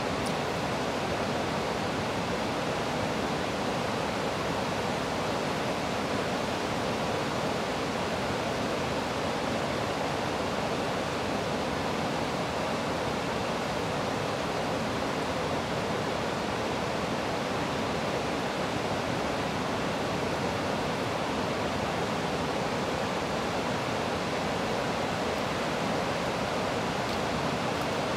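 River weir with water rushing steadily over it, an even unbroken roar of falling water.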